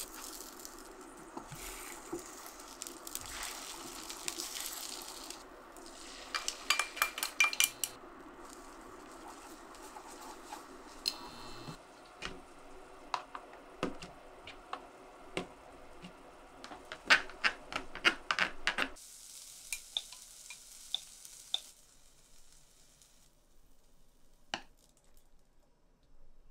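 Egg and crab stick sizzling in a frying pan for the first few seconds. Then a run of sharp clinks and taps of kitchen utensils against pans, dishes and containers, loudest in two clusters, with another short stretch of hissing near the end.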